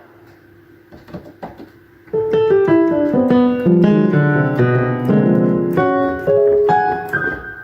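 Yamaha DGX-305 digital keyboard playing its piano voice, with a few faint clicks first. About two seconds in, a run of notes starts, stepping down and then back up, and it ends near the end: the keys, silent before the repair, now sound.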